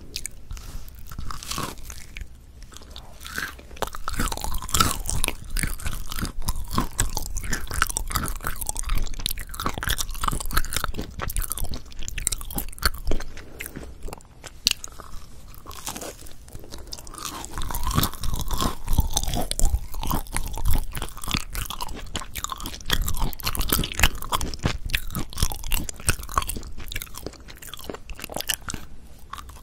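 Close-miked eating of potato bread: bites into the browned crust and steady chewing, with a dense crisp crackle.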